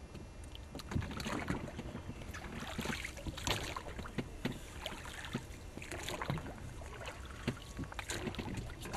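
Oars paddling a small boat backwards: irregular splashes of the blade strokes in the water, over a steady wash of water against the hull.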